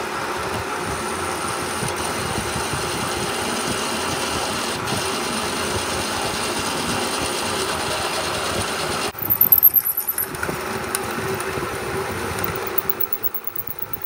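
Metal lathe running, its four-jaw chuck spinning a square metal bar while a twist drill in the tailstock chuck bores into the end. A steady machine hum, turning louder and uneven for about a second some nine seconds in, then easing off near the end.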